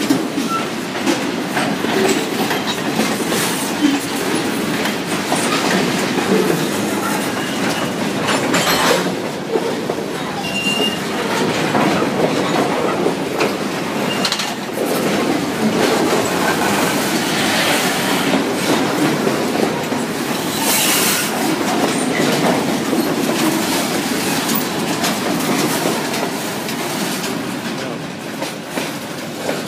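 Freight cars of a passing train rolling by, steel wheels clacking over the rail joints and the crossing with a steady rumble. There are a few brief wheel squeals, one about ten seconds in.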